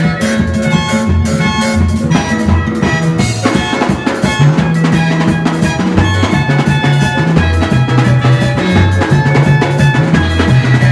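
Music with a full drum kit, a moving bass line and pitched instruments, played at a steady beat.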